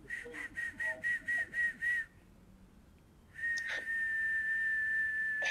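A high, pure whistled tone: about eight short pulses, roughly four a second, then after a pause of about a second a long steady note held to the end.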